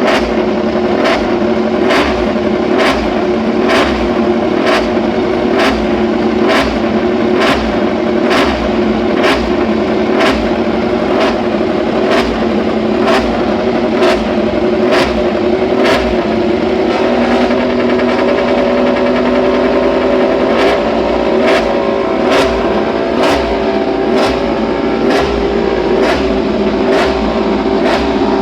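Honda RC213V MotoGP bike's V4 engine running steadily during a pit-box warm-up, with a sharp tick repeating about one and a half times a second. There are no big revs; the engine note shifts slightly about two-thirds of the way through.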